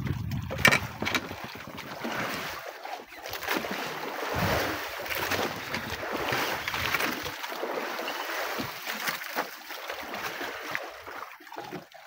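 Sea water sloshing and slapping against an outrigger fishing boat's hull and float, in uneven surges, with wind gusting on the microphone.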